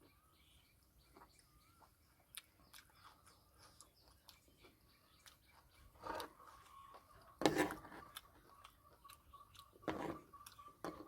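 Close, faint chewing with small wet mouth clicks, and three louder noises about six, seven and a half and ten seconds in. From about six seconds in, a rapid steady chirping runs underneath.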